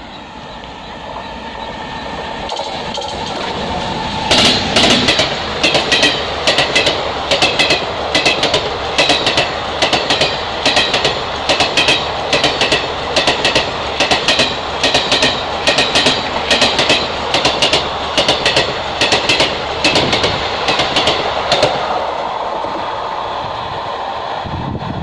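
Train with a WAG-9 electric locomotive passing at speed: the running noise builds over the first few seconds, then the wheels click over the rail joints in a fast, steady rhythm of paired clicks for most of the time, fading near the end.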